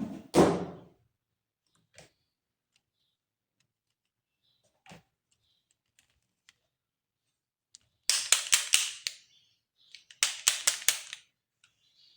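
Hard plastic toy pieces being handled: a knock just after the start, a couple of faint taps, then two quick runs of sharp clicks, about five in each, near the end.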